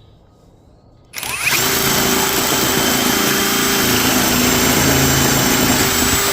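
Electric drill with a hole saw cutting into the wooden bed boards. It spins up about a second in and runs steadily at full speed with a motor whine for about five seconds, then stops.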